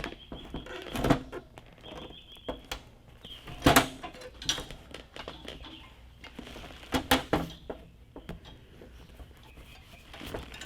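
Irregular metal knocks and clanks from a car seat's steel frame and hinge being pried apart, the loudest a little under four seconds in and a quick cluster around seven seconds.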